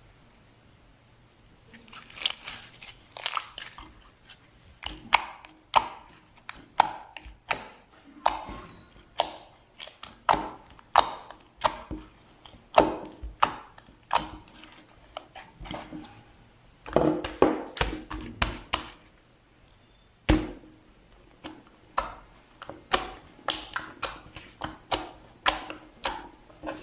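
Slime being pressed and worked by hand, giving an irregular string of sharp pops and clicks, a few each second, starting about two seconds in.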